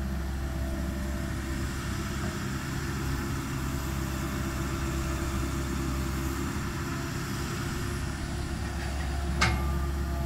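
Excavator's diesel engine running steadily at a constant speed, with one sharp clank about nine seconds in.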